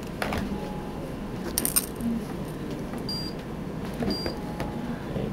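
A small metal charm on a cat's collar jingling briefly, a little over a second in. Two short high beeps follow about a second apart.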